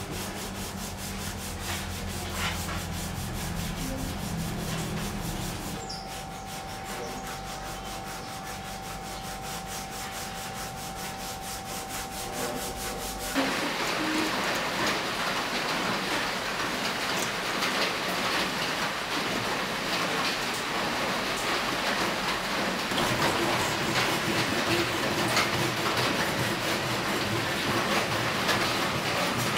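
Sandpaper rubbing on a wooden knife handle, then, from about halfway, a louder steady rasp of a sharpening stone on a fixed-angle sharpener's guide rod stroking back and forth along a steel kitchen knife blade.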